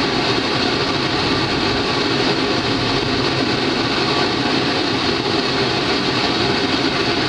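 Two homemade propane forge burners of the venturi type, with MIG-tip gas jets, firing in the open air with a steady, even rushing hiss.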